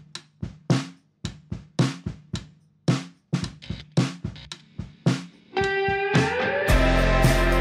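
Background music: sparse plucked and drum hits, then a held note that slides upward about five and a half seconds in, with a full band and steady bass coming in about a second later.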